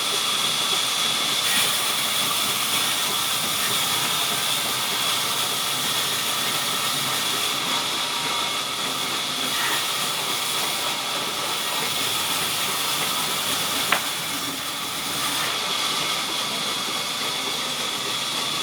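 Sawmill saw running: a steady, loud hissing noise with a thin, constant high whine, and a single sharp click about 14 seconds in.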